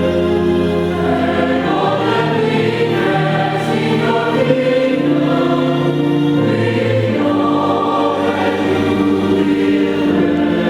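Church choir singing in harmony, with held chords that change every second or two.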